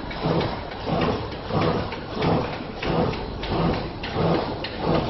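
EPE foam net extrusion line running, its machinery giving a steady noise with a rhythmic swish that repeats about one and a half times a second.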